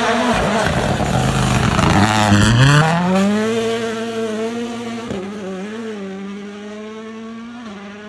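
Toyota GR Yaris Rally1 car's turbocharged four-cylinder engine at high revs on a gravel stage. The pitch dips about two and a half seconds in, with a brief crackle, then climbs sharply as it accelerates. It holds a high steady note and fades as the car pulls away.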